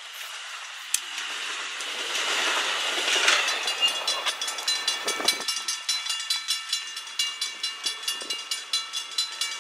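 An Amtrak Pacific Surfliner bilevel passenger train rolls past and its sound fades away. Then a railroad grade crossing bell rings in rapid, even strokes as the gates start to lift.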